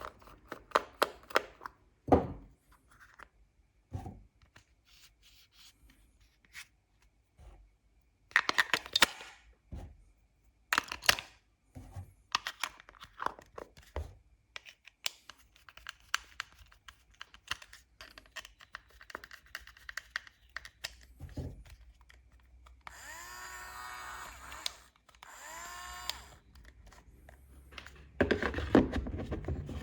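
Handling of toy packaging and small plastic toy parts: irregular sharp clicks and taps, with bursts of plastic tearing and crinkling. About three quarters of the way through comes a couple of seconds of pitched rasping.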